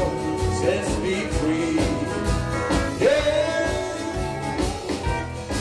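Live country band playing: acoustic guitar, pedal steel guitar, bass and drums, with notes sliding up in pitch about three seconds in.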